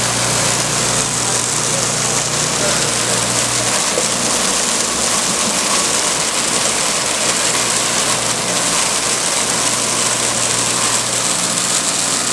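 Vincent VS8 8-inch shredder running steadily under load as it shreds soaked raw pistachios, with the shredded pieces spraying from its discharge into a plastic tote. A low hum under the noise fades about four seconds in.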